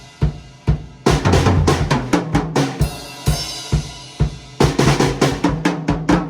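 Drum kit played freely, with bass drum and snare strokes. Crashes with a cymbal wash come in about a second in and again past four seconds, and the strokes turn quicker and busier near the end.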